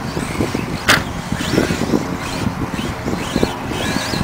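Radio-controlled short course trucks racing on a dirt track: high motor whine rising and falling in pitch with the throttle, over a rushing background, with a sharp knock about a second in.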